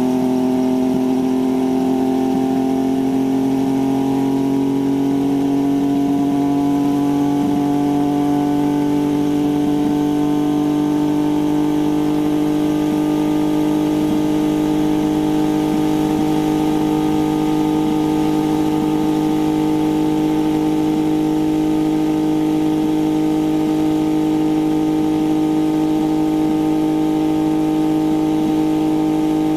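MH-1 helicopter running on the ground with its main rotor turning. The steady engine note rises slowly in pitch over the first several seconds, then holds steady at speed.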